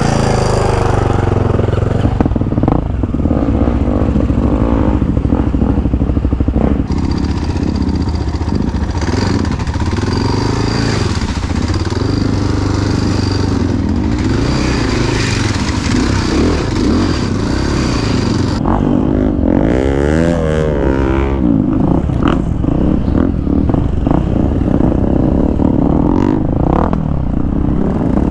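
Off-road motorcycle engine running as the bike is ridden, its pitch rising and falling with the throttle.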